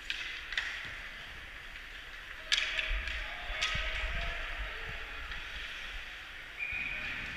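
Ice hockey play in an arena: skates scraping on the ice, with sharp cracks of sticks and puck. The loudest crack comes about two and a half seconds in and another about a second later. A short high steady tone sounds near the end.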